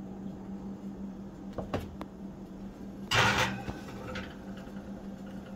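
Metal loaf pan being put into an oven: a couple of light clicks, then a brief scraping clatter about three seconds in as the pan goes onto the wire rack, over a steady low hum.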